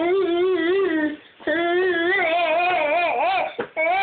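Baby vocalizing in long, drawn-out vowel squeals with a wavering pitch, two long ones and a third starting near the end.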